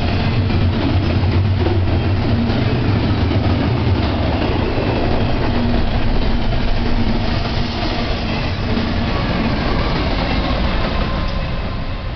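Double-stack container train well cars rolling past close by: a steady rumble of steel wheels on rail with a low hum underneath, easing off slightly near the end.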